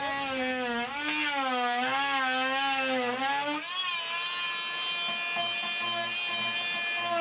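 Handheld electric rotary tool whining as it cuts into drywall. Its pitch dips and recovers several times under load, then about three and a half seconds in it holds a steady, higher pitch.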